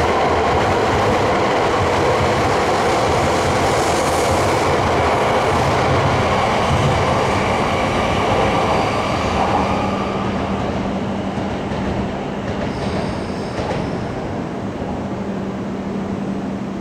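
Shinkansen train running past at a station platform, a loud rushing of running noise that eases off after about ten seconds, leaving a steady low hum.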